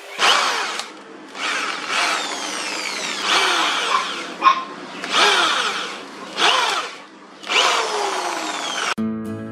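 Handheld corded electric drill boring through a steel plate, run in about six bursts of a second or so with short pauses between them, with a sharp click about halfway through. Acoustic guitar music starts suddenly near the end.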